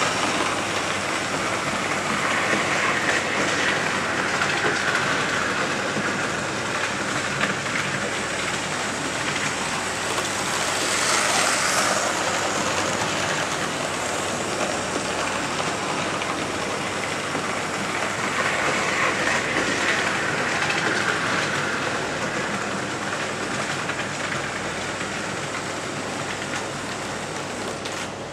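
Hornby model train, a Coronation class locomotive with its coaches, running round the layout: a steady rumble and clatter of its wheels on the track, swelling louder three times as it comes nearer.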